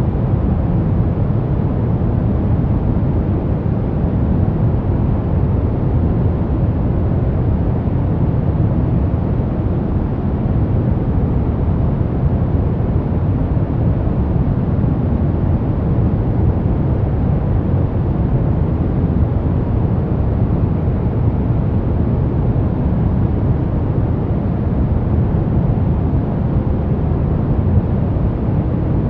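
Steady sleep noise for babies: an unbroken, even rushing hiss weighted heavily toward the deep end, with no change in level or character.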